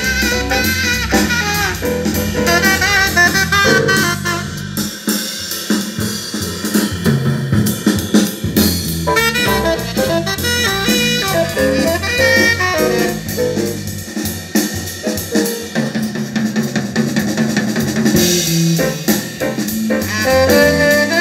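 Music with a drum kit playing back through a pair of 1991 Infinity RS 1001 two-way bookshelf speakers, in a speaker listening test.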